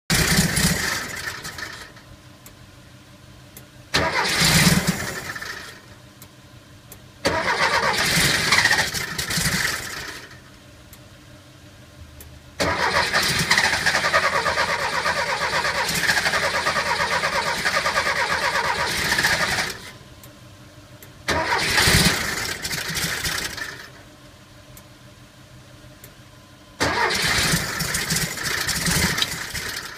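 Car engine cranked on its starter six times in a row without catching. The longest attempt, midway, goes on for about seven seconds with a fast even churning rhythm. The engine won't start.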